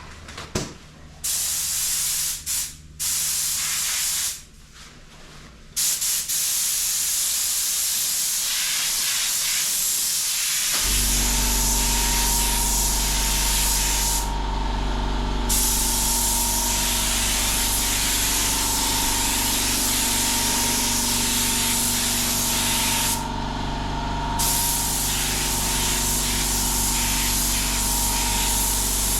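Automotive paint spray gun hissing as paint is sprayed: a few short test spurts, then steady spraying with two brief pauses between passes. About a third of the way in, a machine's steady hum starts and runs under the hiss.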